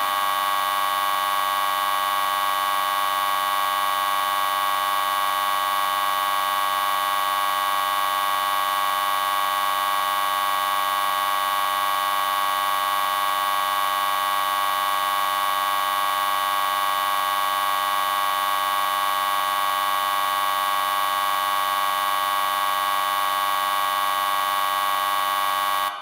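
Electricity sound effect: a steady, unchanging electrical buzz with a strong high-pitched tone at its core.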